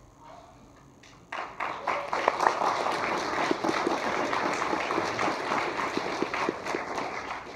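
A congregation applauding. It breaks out about a second in and dies down near the end.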